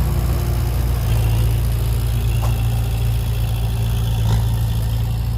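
Heavy diesel engine of a dump truck or excavator running steadily at idle, with a couple of faint knocks.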